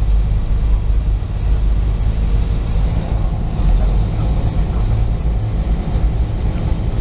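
A ferry under way: the steady low rumble of its engines, with water rushing in its churning wake.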